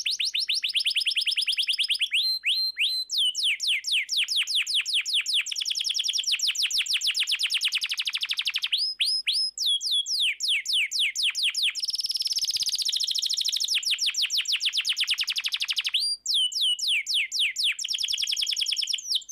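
Domestic canary singing: fast trills of rapidly repeated down-slurred notes, switching to a new trill every second or two, with brief breaks about 2, 9 and 16 seconds in.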